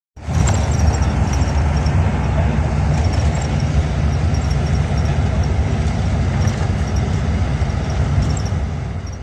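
Steady low rumble of a moving coach bus's engine and tyres heard from inside the cabin, with a hiss of road noise and faint high ticks over it; it starts abruptly.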